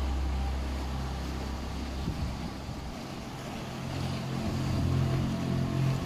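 Sustained low drone of ambient meditation music, with a second low tone swelling in about two-thirds of the way through, over the steady wash of sea waves breaking around rocks.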